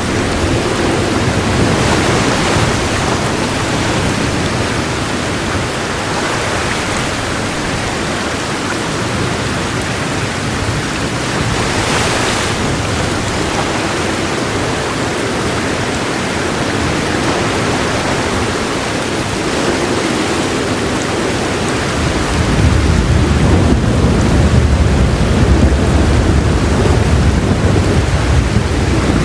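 Heavy rain falling steadily in a dense hiss. About three-quarters of the way through, a low rumble of thunder rolls in and keeps going.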